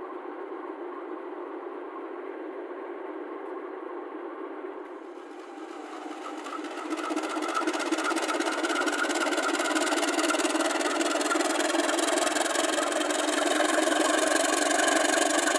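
Diesel engine of the CC 203 95 05 locomotive idling with a steady hum. About six seconds in it is throttled up for departure and runs much louder and rougher, with hiss spreading into the high end.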